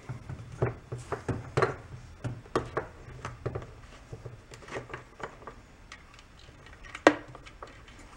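Scattered plastic clicks and knocks from handling a Husqvarna 350 chainsaw and unscrewing its fuel cap, with one sharper click about seven seconds in. A low steady hum runs underneath.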